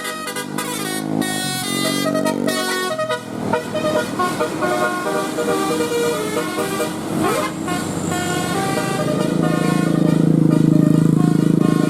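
Bus 'telolet' musical air horns playing a quick tune of short, stepping notes, then a loud held chord from about nine seconds in.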